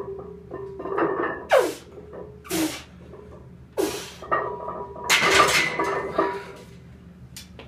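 A bench-presser's sharp, forceful breaths, three of them about a second apart, bracing under a heavy loaded barbell, then a longer, louder strained burst of effort about five seconds in. A short click follows near the end.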